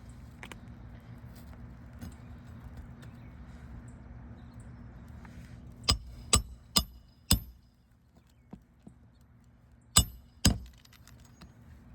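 Sharp clinking clicks of a metal snake tool being worked in under brittle asphalt shingles: four quick strikes about halfway through, then two more near the end, over a low steady rumble that fades out before the clicks.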